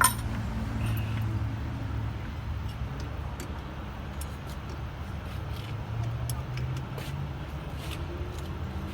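A sharp click, then a steady low hum with scattered faint clicks and taps.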